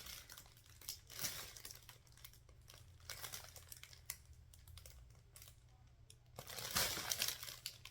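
Packaging crinkling and rustling as items are handled, with scattered small clicks and knocks. A louder stretch of rustling comes near the end.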